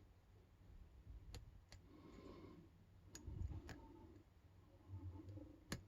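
A lock pick working the pin stacks of a small brass padlock: faint scraping with about five sharp clicks as pins set, the loudest near the end.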